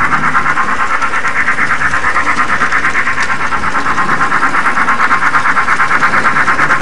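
Built-in steam sound of an HO-scale DC Thomas model locomotive: a quick, even chuffing rhythm, about five chuffs a second.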